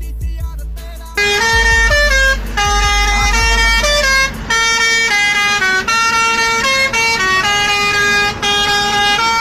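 A truck's musical multi-tone horn playing a tune: loud pitched notes stepping up and down, each held a fraction of a second to about a second, starting about a second in and cutting off suddenly at the end, over a steady low rumble of road and engine.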